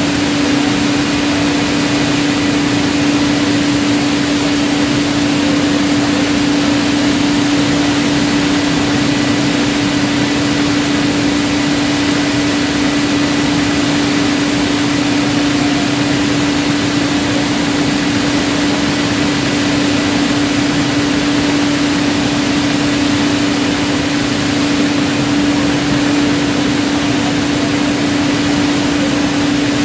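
Steady din of a running bottling line's conveyors and machinery, an even noise with a constant hum under it.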